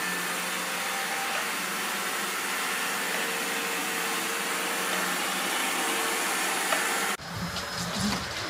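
Robot vacuum cleaner running with a steady hiss and a constant motor hum and whine. About seven seconds in it cuts off abruptly, and a lower, uneven rumble takes over.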